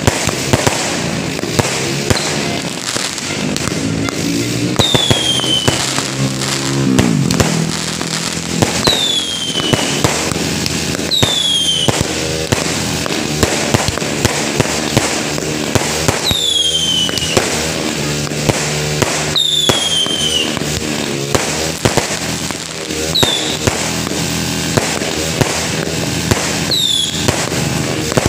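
Aerial fireworks going off in quick succession, with a constant run of sharp bangs and crackles. Every few seconds a whistling shell rises into a high whistle that falls in pitch as it fades.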